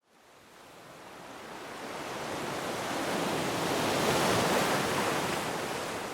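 A rushing noise, like surf or a whoosh, swelling steadily from silence to a peak about four seconds in, then easing slightly.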